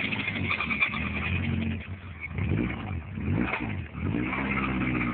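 Honda Civic four-cylinder engine running, blipped up and back down twice in the middle, with a loud rhythmic "dat-dat-dat" knock from a badly spun rod bearing on cylinder one.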